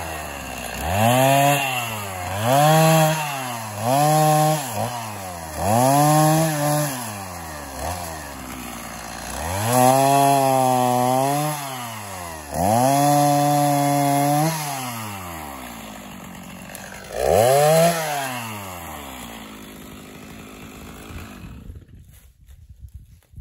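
Stihl MS 290 two-stroke chainsaw cutting through downed limbs: it revs up to full throttle and drops back to idle about seven times, each cut lasting one to two seconds. Near the end the engine winds down and stops.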